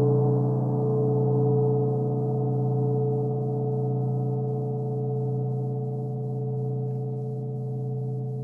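A 24-inch Grand Master Turkish Cymbals gong ringing on after a soft stroke. A deep hum and a higher tone above it sustain and slowly fade, swelling gently in level as they die away: the gong's 'breathing'.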